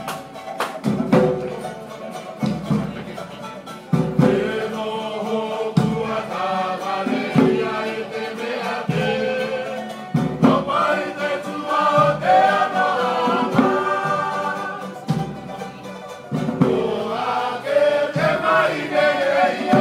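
A group of voices singing together in harmony, accompanied by a strummed acoustic string instrument and a regular beat about every one and a half seconds. The singing grows louder about four seconds in.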